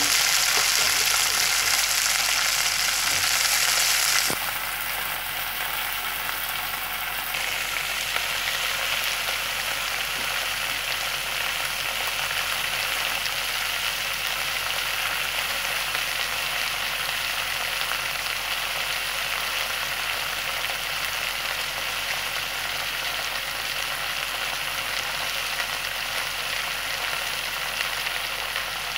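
Moringa (drumstick) pods sizzling as they fry in a pan, a steady hiss. It is louder at first, drops suddenly about four seconds in, then carries on evenly.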